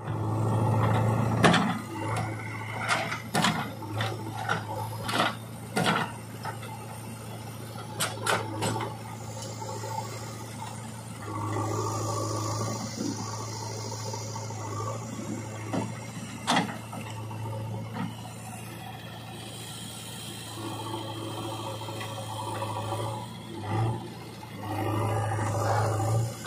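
JCB 3DX backhoe loader's diesel engine running under load as its backhoe digs rocky soil, the engine note swelling several times as the arm works, with repeated sharp knocks and clatter of stones against the bucket, most of them in the first half.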